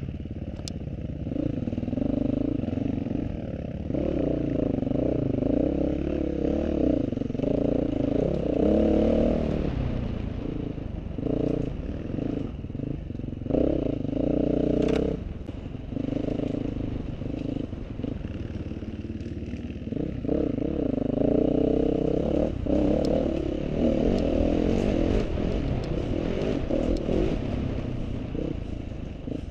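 Off-road motorcycle engine, its revs rising and falling again and again as it is ridden over rough ground, with clatter and rattling on top.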